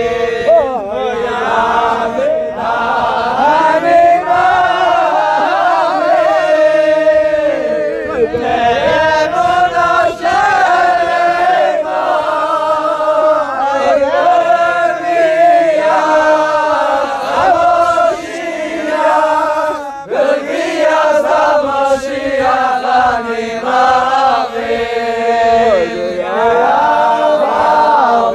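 Chanted singing by a group of voices: a slow melody with long, wavering held notes.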